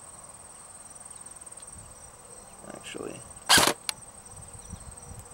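A single shot from an ICS M16 DMR airsoft electric gun, one short sharp report about three and a half seconds in, followed by a small click. Under it runs a steady high chirring of crickets.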